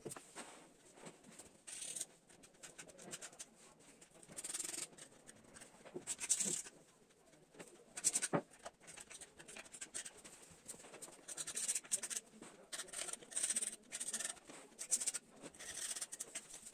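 Scratchy rubbing and scraping strokes, in an irregular rhythm, as cement residue is scrubbed by hand off the glazed faces of a tile-clad cement flower pot. There is a sharper click about eight seconds in.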